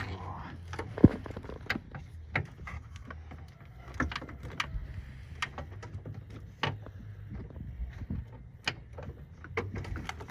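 Irregular metal clicks and knocks of a socket, long extension and hand tools being handled and fitted at a truck battery hold-down, with one sharper knock about a second in.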